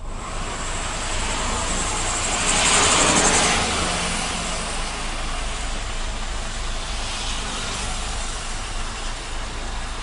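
Road and traffic noise heard from a moving vehicle in city traffic: a steady rumble and hiss of engines and tyres, with a louder rushing swell about three seconds in.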